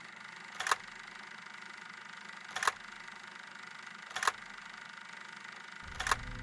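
Old film projector sound effect: a steady hum and hiss with a sharp click every second and a half or so. Near the end a low, fast mechanical clatter starts up, like the projector's mechanism running.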